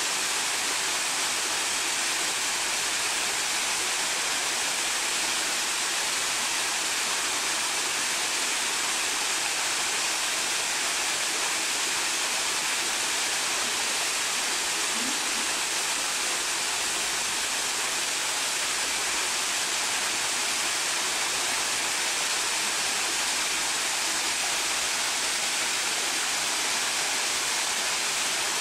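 Water tumbling down a stepped stone garden waterfall into a pond: a steady, even hissing rush with little low rumble.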